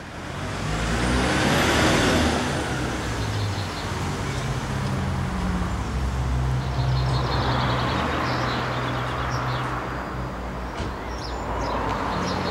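An engine running steadily, a low hum that shifts slightly in pitch a couple of times, with a faint high rising-and-falling whistle about a second in.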